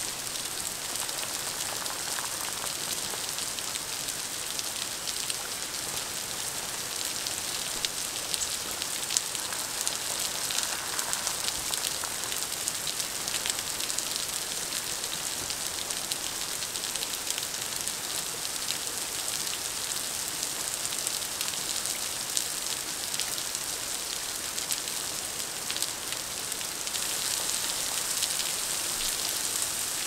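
Steady rain falling on wet rocks and the surface of a pool: an even hiss dotted with many small drop ticks.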